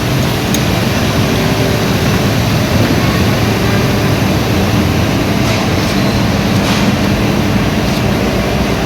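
Street sweeper at work: its engine running with the rotating brushes sweeping and scraping the road surface in a loud, steady noise.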